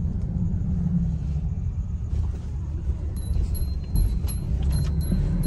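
Car driving along a road: a steady low rumble of engine and tyres. A fast, high ticking at about three per second joins about three seconds in.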